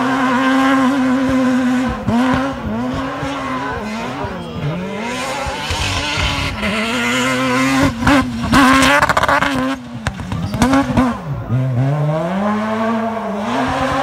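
Off-road rally car's engine revving hard, its pitch repeatedly climbing and dropping as the driver shifts and lifts through the turns. About six to nine seconds in, as it passes closest, a hiss and crackle of tyres scrabbling on loose dry dirt joins the engine.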